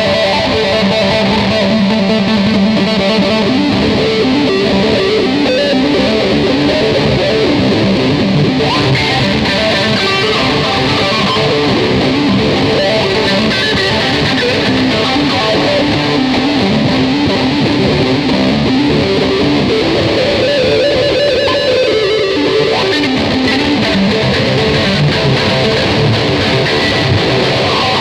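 Ibanez electric guitar being played, a continuous run of strummed and picked notes with no pauses.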